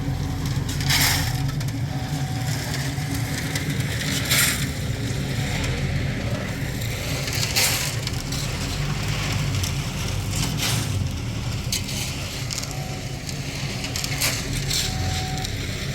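An engine runs steadily with a low hum, while a short scrape or knock breaks in every three seconds or so.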